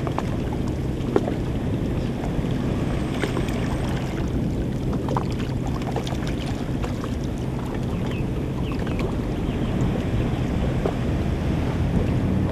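Wind on the microphone and sea water lapping and splashing lightly, with scattered small splashes over a steady low hum.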